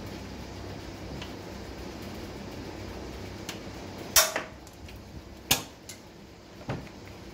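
Metal clanks from generator parts being handled and fitted: three sharp knocks, the first and loudest about four seconds in, with a few lighter ticks earlier. A steady low hum lies under them.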